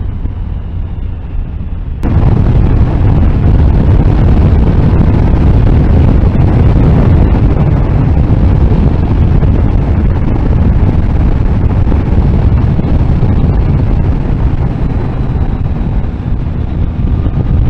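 Motorcycle ridden at speed, with wind buffeting hard on the microphone over the low running of the Triumph Tiger Sport 1050's engine and road noise. The noise jumps sharply louder about two seconds in.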